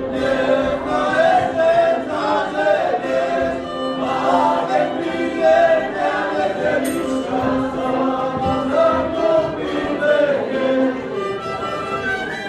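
Music: a group of voices singing over a steady held low note.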